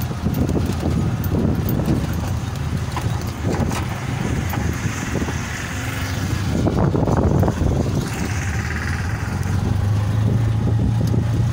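Auto-rickshaw engine running and road noise heard from inside the cab while riding, with wind hiss; a steadier low drone sets in about two-thirds of the way through.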